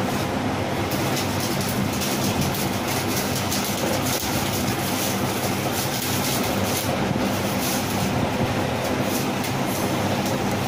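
Steady mechanical running noise with a low droning hum and faint irregular ticks, holding at an even level throughout.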